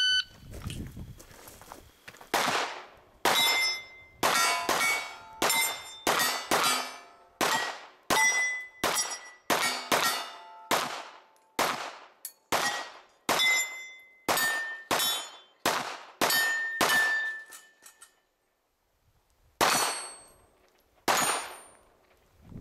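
A shot-timer beep, then a fast string of handgun shots, about one to two a second, with steel target plates ringing as they are hit. After a pause of about two seconds, two final shots and rings follow near the end.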